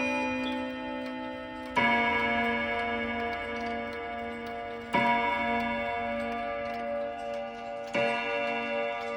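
Girod Veritable wall clock striking the hour: three slow, evenly spaced strokes about three seconds apart, each ringing on and fading, over the clock's steady tick.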